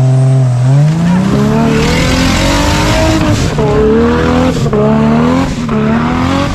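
Modified off-road 4x4's engine revving hard in repeated surges, its pitch climbing and falling about four times, with a hiss of tyres spinning on loose ground.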